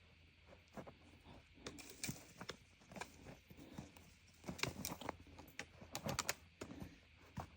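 Faint, irregular crunching footsteps in snow on a downhill trail.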